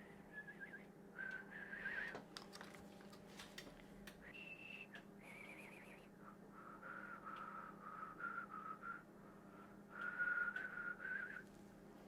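A person whistling a wandering tune in short phrases, fairly faint, over a steady low hum, with a few light clicks a few seconds in.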